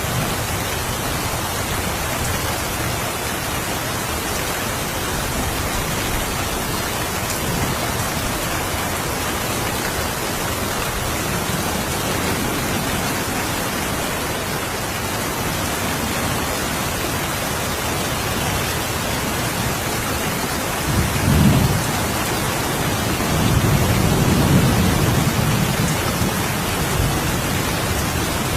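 Steady rain falling, with distant thunder rumbling twice in the second half: a short roll about three-quarters of the way in, then a longer, louder one shortly after.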